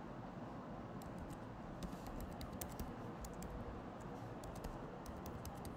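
Typing on a computer keyboard: a run of faint, irregular key clicks with short pauses between bursts.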